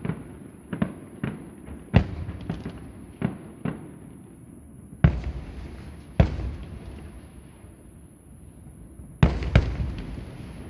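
Aerial fireworks shells bursting: a quick run of smaller cracks in the first few seconds, then heavy booms about two, five, six and nine seconds in, each trailing off in a rolling echo.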